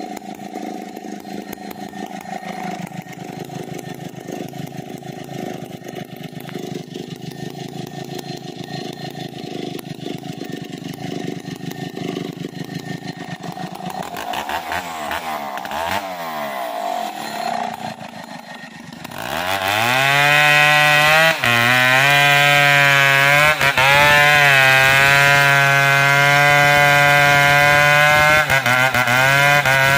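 Stihl chainsaw idling, then about two-thirds of the way in revved to full throttle and cutting into the base of a large standing tree trunk. Its pitch wavers under the load of the cut.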